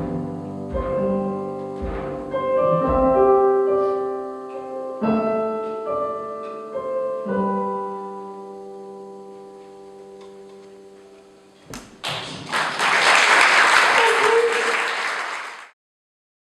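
The closing instrumental bars of a live folk song, with piano-like notes and low thumps, then held notes ringing and slowly fading away. About twelve seconds in, the audience breaks into applause, which cuts off abruptly near the end.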